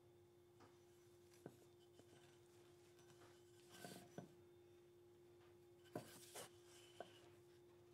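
Near silence: a few faint light taps and short rubs as a hand-forged hot cut with a wooden handle is turned over on a wooden stump, over a faint steady hum.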